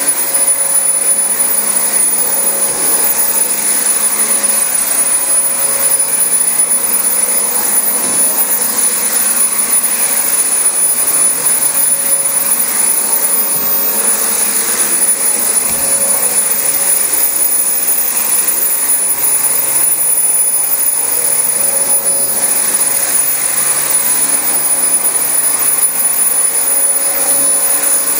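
Dyson DC25 upright vacuum cleaner running steadily on thick new carpet: an even rush of air with a constant high-pitched whine from the motor.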